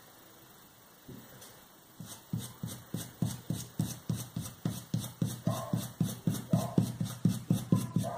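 Small paintbrush working paint through a plastic stencil onto foam sheet: a steady run of soft taps, about four a second, starting about two seconds in.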